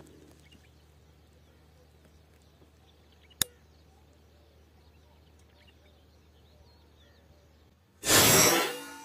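A PCP airgun fires once about eight seconds in: a loud, sudden report with a short fading tail. Earlier, about three seconds in, there is a single sharp click.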